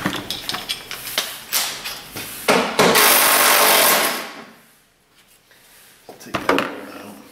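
Hand tools and plastic trim fasteners clicking and knocking as the minivan's grille and front trim are worked loose. About three seconds in there is a loud burst of noise lasting just over a second.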